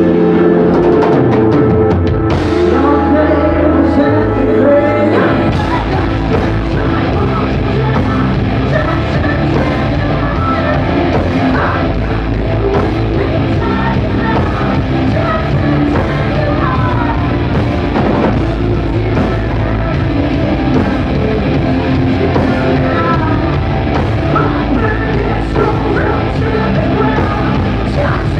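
Live hard rock band playing: a woman singing lead over electric guitars, bass and a drum kit, loud. The full band's low end fills in about five seconds in.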